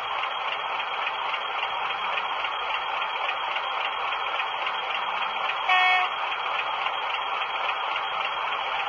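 A short horn toot from a model diesel locomotive's sound system, a single pitch with several overtones, about six seconds in, over a steady hiss.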